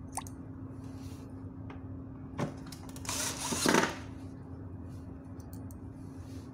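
Cordless drill driving a screw into the lamp's housing in one run of about a second, around three seconds in, after a short knock.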